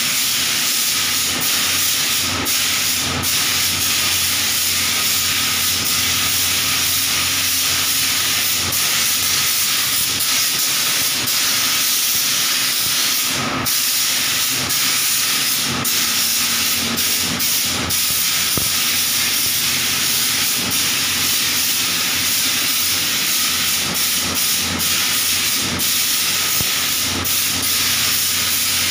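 Compressed-air paint spray gun hissing steadily as it sprays paint, with a few momentary breaks where the spray stops.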